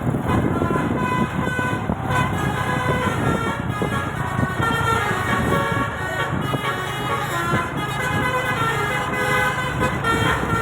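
Bus musical air horn (telolet/basuri type) playing a quick melody of short stepped notes over the low rumble of the bus engine.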